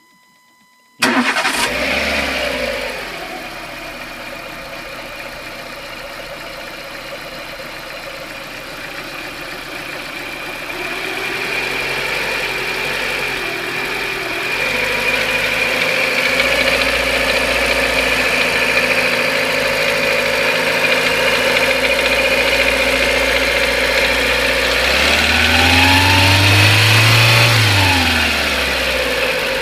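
Renault K4M 1.6-litre 16-valve four-cylinder petrol engine starting about a second in, settling to a steady idle, then revved up and back down once near the end. The owner reports an unexplained knock from this engine when hot at about 2,000 rpm.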